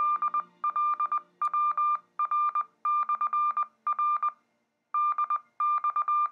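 Morse code from a simplex repeater coming through the speaker of a Yaesu VX-8DR handheld: a single high beep keyed in dashes and dots, in groups, with a short pause about four and a half seconds in. It is the repeater's Morse identification after its voice playback.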